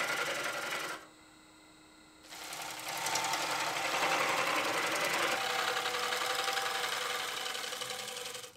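Bowl gouge cutting a dry ambrosia maple bowl blank spinning on a Laguna wood lathe: a steady, rapidly pulsing cutting noise. About a second in the tool comes off the wood, leaving only a faint hum, and the cut starts again a little over a second later. It stops at the very end.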